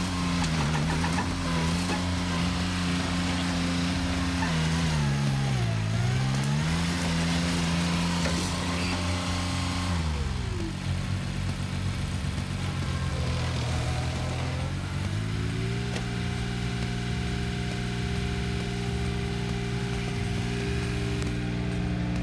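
Engine of a stump-removal machine running under load. Its pitch sags and recovers about five seconds in, drops again about ten seconds in and stays low for several seconds as the machine is loaded down, then rises and holds steady.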